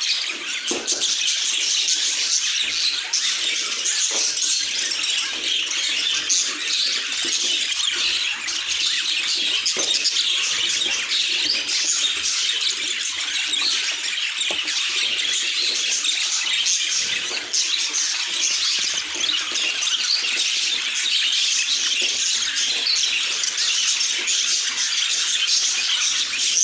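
Budgerigars chattering continuously: a dense, steady stream of overlapping chirps, warbles and squawks from several birds.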